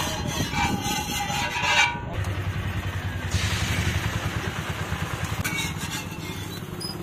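Beaten egg hitting a hot flat iron griddle and sizzling, an even hiss that starts about halfway in. Under it runs a low steady rumble.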